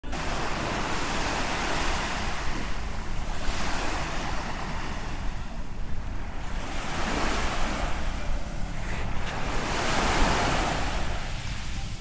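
Small sea waves washing onto a sandy beach, the surf swelling and fading every few seconds, with wind rumbling on the microphone.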